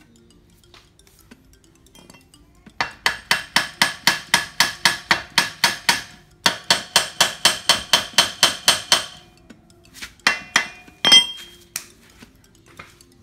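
Small hammer striking metal in quick, even taps with a ringing clang, about five blows a second, in two long runs and then a few single blows near the end: hammering at a seized nut on a dismantled air-conditioner compressor.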